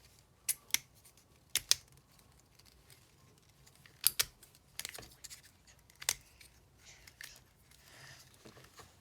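Plastic snake twist puzzle clicking as its segments are twisted: a string of sharp, irregular clicks, some in quick pairs.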